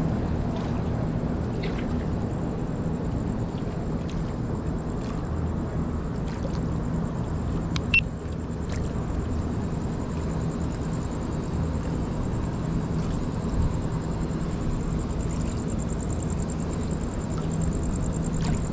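Steady low motor rumble with a droning hum, unchanging throughout, with a single sharp click about eight seconds in.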